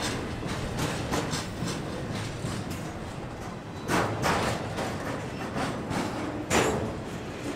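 Freight train of intermodal well cars rolling past at trackside: a steady rumble of steel wheels on rail, broken by sharp clacks as the wheels pass over the rail, in a cluster about four seconds in and again shortly before the end.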